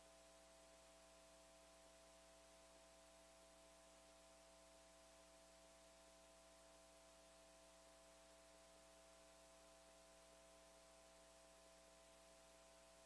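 Near silence: a faint steady electrical hum with light hiss, and no speech.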